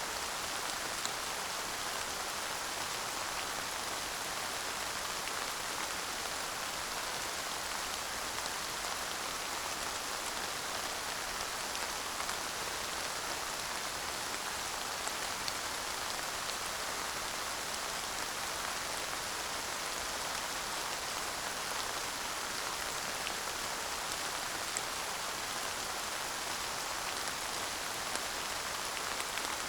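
Steady light rain falling, an even hiss with scattered drop ticks, no thunder.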